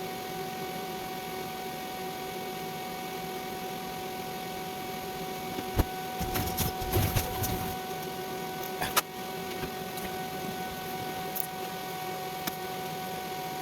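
A steady machine hum with several constant tones, broken by a sharp click about six seconds in, a short spell of knocking and rattling, and another click about nine seconds in.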